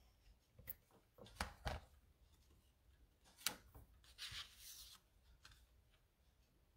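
Faint handling of paper and cardstock on a craft table: a few soft taps as sheets are set down, and a short rustle of paper a little past the middle.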